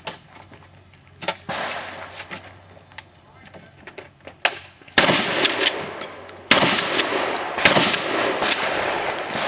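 A shotgun being fired in a string of several shots, each ending in a long echoing tail. The first comes about a second and a half in, and louder ones follow between five and eight seconds in.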